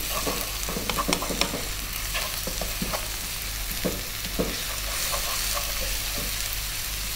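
Chopped onions with ginger garlic paste frying in ghee in a non-stick wok: a steady sizzle, with a wooden spoon scraping and tapping against the pan as it stirs.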